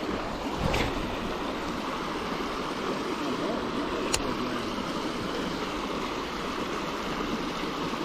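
Steady rush of moving water, with two brief sharp clicks about one and four seconds in.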